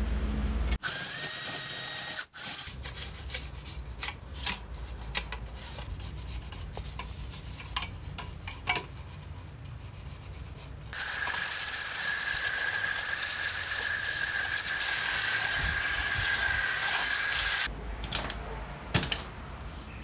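Metal radio chassis plate being cleaned: irregular scraping and scrubbing strokes on the metal, then about six seconds of a loud, steady motor whine with hiss, as from a power tool, which cuts off suddenly.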